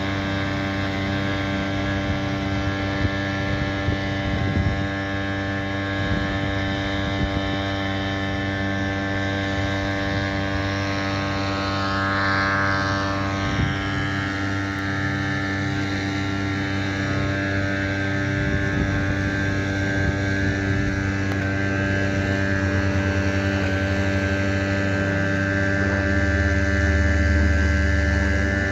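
Drone of firefighting aircraft engines, a steady, many-toned hum. About twelve seconds in, a sweeping change in pitch as an aircraft passes, and the low rumble grows louder near the end.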